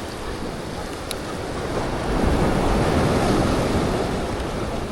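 Ocean waves washing against jetty rocks: a surge swells about two seconds in and eases off near the end, with some wind on the microphone.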